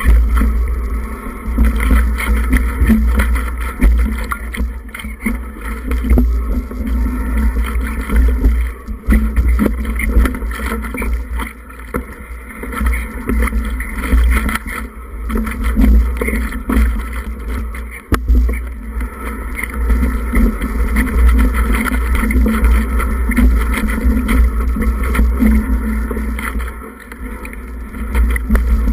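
Wind rushing over a moving camera's microphone as a deep steady rumble, with constant clattering and knocks from riding fast down a rough dirt forest trail.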